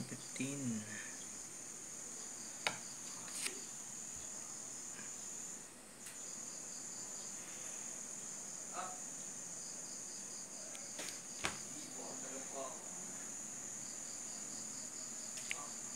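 Insects chirring in a steady high trill that breaks off briefly about six seconds in, with a few sharp clicks.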